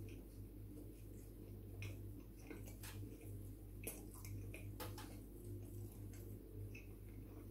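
Faint chewing of pizza: scattered wet mouth clicks and smacks, over a steady low hum.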